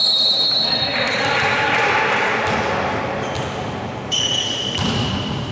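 Referee's whistle in a gym, a high held note that trails off in the first second or two. A second, shorter high note comes about four seconds in, over voices echoing in the hall.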